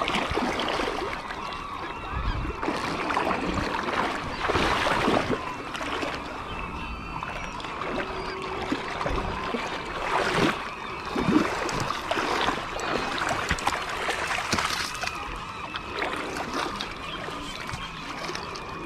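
Birds calling over and over, many short wavering cries overlapping throughout, over a steady wash of water noise.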